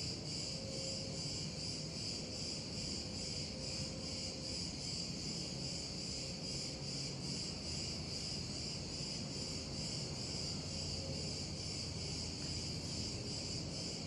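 Crickets chirping in a steady, high, rapidly pulsing trill, with a low steady rumble underneath.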